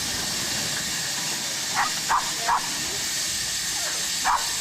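Erie Type A steam shovel letting off a steady hiss of steam. Over it come short, sharp yelps: three in quick succession about two seconds in, and two more near the end.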